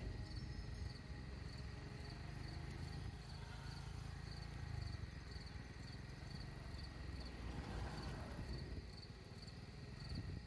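Insects chirping in a steady high pulse about twice a second, with a continuous high whine, over a low rumble.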